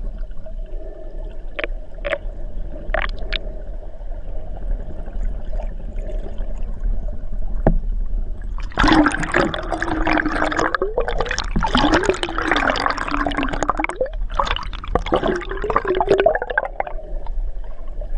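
Underwater sound as heard through a camera housing: muffled gurgling, bubbling water with a few sharp clicks. About halfway through it turns loud and busy, with wavering, warbling tones, pauses briefly, then comes back.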